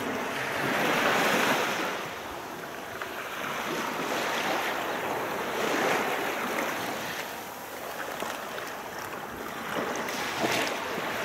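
Sea waves washing onto a sandy beach, swelling and falling back several times, with wind buffeting the microphone.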